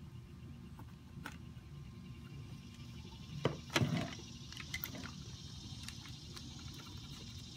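Handling noise of wire harnesses being pushed through a hoverboard's aluminium frame: scattered light clicks and rustles, with a louder cluster of knocks and scraping about three and a half seconds in.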